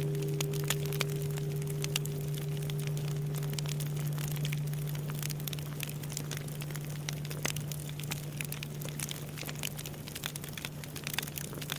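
Crackling and popping of a wood bonfire over the low hum of a large Japanese temple bell dying away after a strike. The bell's higher overtones fade out about four seconds in, leaving only the low hum slowly growing fainter.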